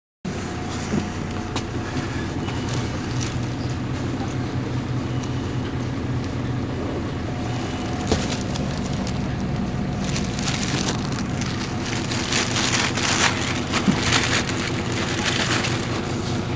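MAN NL223 city bus's diesel engine idling steadily while the bus stands still, with a few light knocks and a spell of hissing in the second half.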